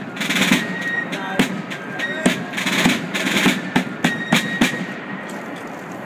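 Marching drums beating a ceremonial cadence, with sharp single strokes and short rolls, stopping about five seconds in.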